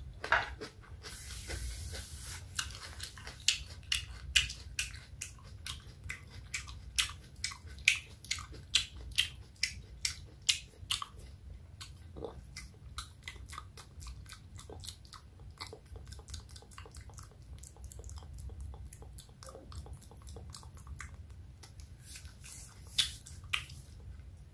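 Wet mouth sounds close to the microphone: rapid moist clicks and smacks of lips and tongue, thinning out in the middle and quickening again near the end, with a short hiss about a second in.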